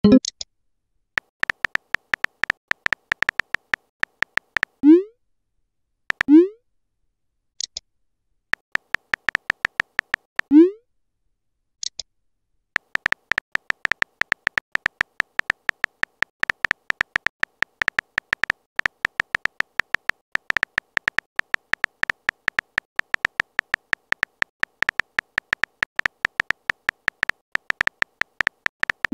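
Chat-app keyboard typing clicks in fast runs, with a short rising pop three times as new message bubbles appear, about five, six and ten and a half seconds in. Brief high chirps come twice, and one long unbroken run of typing fills the second half.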